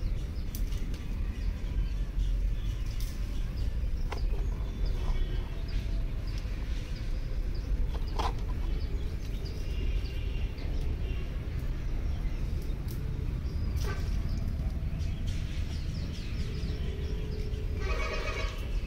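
Outdoor pond-side ambience: many short bird chirps over a steady low rumble. Near the end, a held sound with several tones begins.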